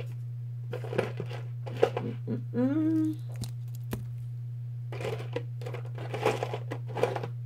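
Hands rummaging for and setting down small plastic-and-clay charms with metal chains: scattered rustles and light clicks, busiest near the end. A short hummed vocal sound comes a few seconds in, over a steady low hum.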